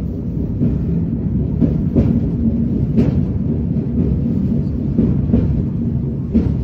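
Steady low rumble inside a moving aerial ropeway cabin, with irregular knocks and clicks.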